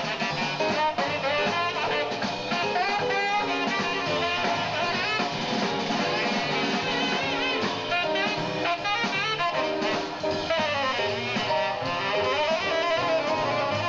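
Live jazz band: a tenor saxophone soloing in fast runs of notes over drums and the rhythm section.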